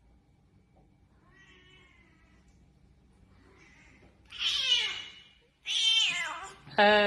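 Cat meowing: a couple of faint meows, then two loud meows that fall in pitch, about a second and a half apart. A longer, lower, steadier call starts just before the end.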